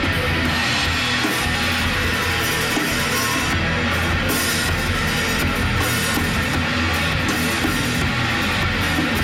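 A band playing heavy rock: guitar over a full drum kit, loud and continuous, with a driving beat.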